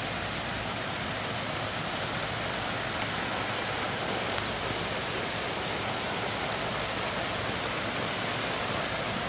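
Heavy rain pouring down steadily, an even rushing hiss.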